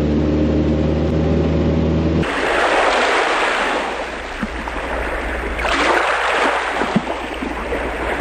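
A boat motor runs steadily for about two seconds. Then there is a sudden change to a loud rushing of wind and water as the boat runs across the river, swelling and easing.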